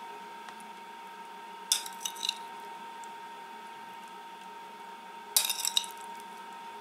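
Metal spoon clinking against a glass bowl as diced potato filling is scooped out and spooned onto a tortilla: a few sharp clinks about two seconds in and another short cluster about five seconds in, over a faint steady hum.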